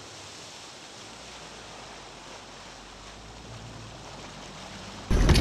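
Steady rush of wind and water from a bass boat running across a lake at speed. Just before the end it cuts abruptly to a much louder clatter of handling noise.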